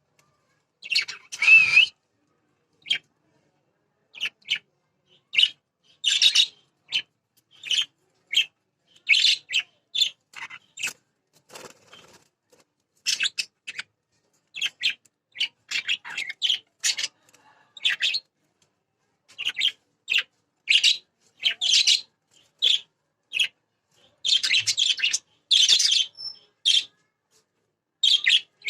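Pet budgerigars chirping: many short, high calls in an irregular series with brief silences between them, coming thicker near the end.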